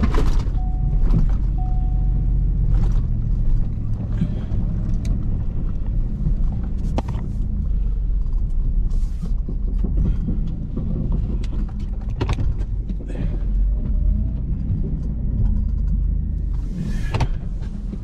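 Vehicle engine running with a steady low rumble, heard from inside the cab while driving. A warning chime beeps about once a second in the first two seconds, and there are scattered knocks and rattles.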